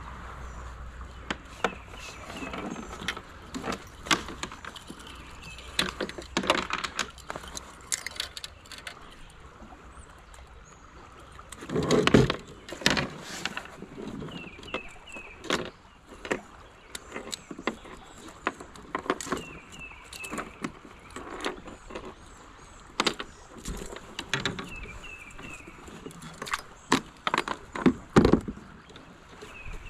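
Close handling noise of a fishing kayak and tackle: scattered clicks, knocks and rattles of rod, reel and lure against the plastic hull while a smallmouth bass is unhooked from a topwater lure in the angler's lap. A louder burst of knocking and rustling about twelve seconds in.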